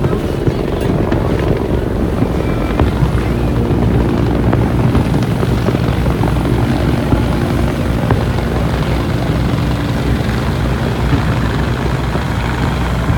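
A large engine running steadily with a deep, even drone.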